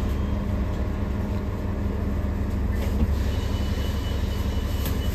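Cabin noise inside a New Flyer XDE60 diesel-electric hybrid articulated bus: a steady low rumble from the engine and drivetrain. A faint high thin tone joins a little past three seconds in.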